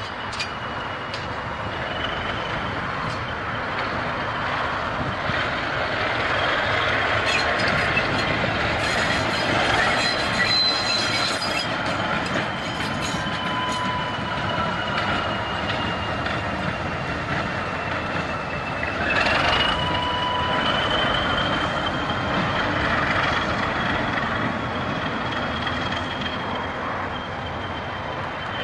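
Diesel switcher locomotive rolling along the track, its wheels squealing against the rails in long, high, slightly wavering tones over a steady rumble, with a cluster of sharp clicks about a third of the way through.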